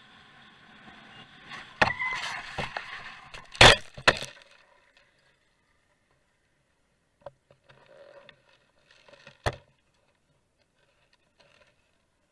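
Vehicle crash: the running vehicle is cut off by a burst of loud impacts and scraping about two seconds in, with the hardest bang just before four seconds, as the camera tumbles onto dirt. After that it is mostly quiet, with scattered small knocks and rustles and one sharp knock about nine and a half seconds in.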